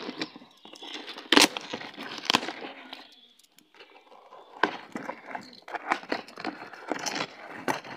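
A cardboard shipping box being pulled and torn open by hand: irregular rustling and crackling of cardboard and packing tape with a few sharp snaps, and a short lull about halfway through.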